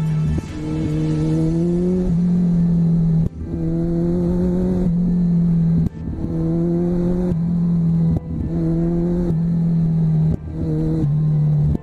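Kawasaki Z1000 inline-four engine running under throttle while riding. Its pitch climbs in short stretches, broken by brief sharp dips about every second or two.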